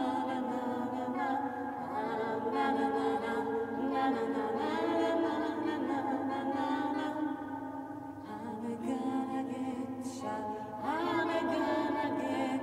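Unaccompanied vocal chant: several voice parts singing together in harmony. It grows softer about eight seconds in, then swells again.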